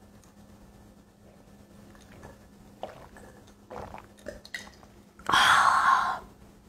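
A person chewing softly, with a few small clicks, then a loud breathy exhale lasting about a second near the end.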